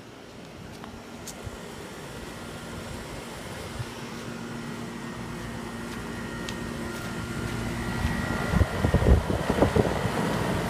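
Outdoor air-conditioner condenser unit running: a steady hum with a fan whir and a faint high whine, growing gradually louder, with gusty low rumbling in the last few seconds.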